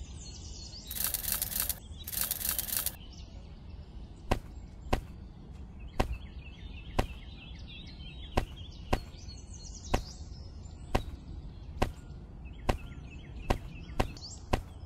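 Dry kidney beans rattling in a small woven basket, twice in quick succession, as a handful is taken up. Then sharp single clicks, about one or two a second, as beans are dropped one by one into sand furrows.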